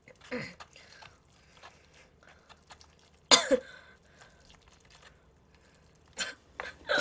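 A woman's short non-speech vocal sounds: a brief one near the start and a louder double one a little after three seconds, each falling in pitch. Faint clicks of chopsticks working noodles in a paper cup fall in between.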